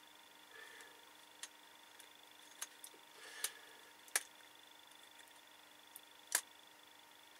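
Small plastic clicks and taps from handling the partly reassembled Sony Bloggie camcorder and its flip-out screen, with several sharp clicks; the loudest come about three and a half, four and six seconds in.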